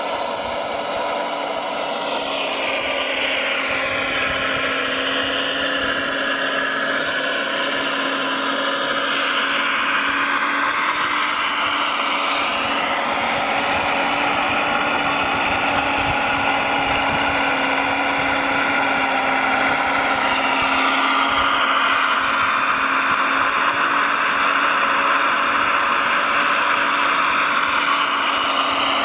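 Electric motors of radio-controlled model trucks and construction machines whining, several overlapping pitches rising and falling as the models speed up and slow down, over a steady low hum.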